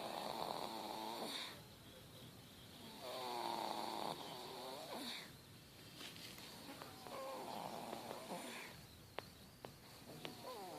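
A seven-month-old baby snoring in her sleep: a rattly snore on each breath, about every three seconds. A few small sharp clicks come near the end.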